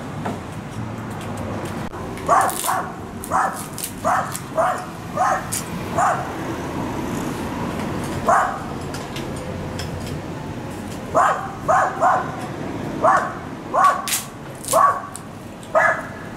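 A dog barking repeatedly off-screen: about fifteen short barks in uneven runs, with a pause of a few seconds in the middle, over a steady background hum.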